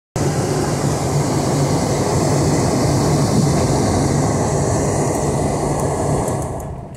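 Car engine and tyre noise heard from inside the cabin while driving on a wet, muddy dirt road: a steady drone with a low hum, dipping briefly near the end.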